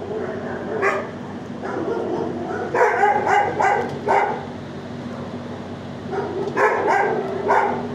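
Dogs barking in a shelter kennel block: a single bark about a second in, a run of about five barks around three seconds in, and another run of about four near the end, over a steady low hum.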